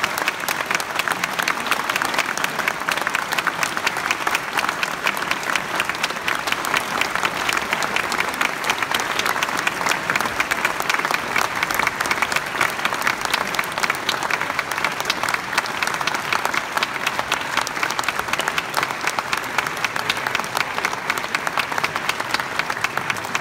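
Audience applauding: a dense, steady clapping of many hands with no break.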